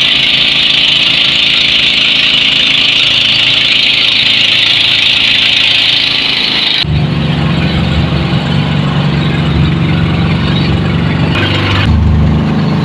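A motor engine running steadily at a constant speed. About seven seconds in the sound changes abruptly to a deeper, heavier engine note with less hiss, and it shifts again near the end.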